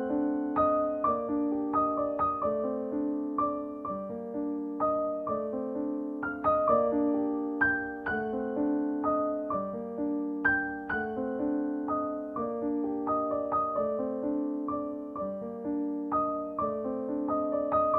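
Background piano music: a gentle melody of single struck notes in a steady, flowing rhythm that repeats.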